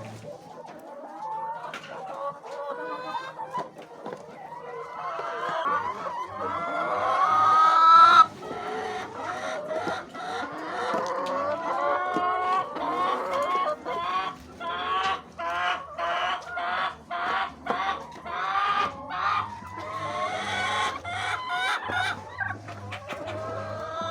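A flock of chickens clucking and calling, with a rooster crowing. The calls build to their loudest about eight seconds in, break off sharply, then go on as many short clucks.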